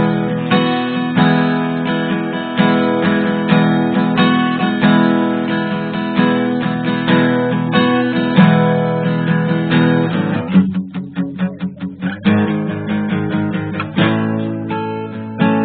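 Background music on guitar, strummed and plucked chords; a bit past ten seconds in it shifts to a quick run of single picked notes for about a second and a half before the chords return.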